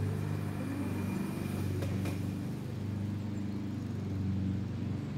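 An engine idling with a steady low hum that swells slightly now and then, and a light click about two seconds in.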